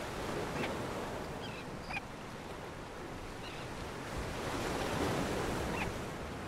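Steady wash of surf and wind on a seabird island, with a few faint, short bird chirps now and then.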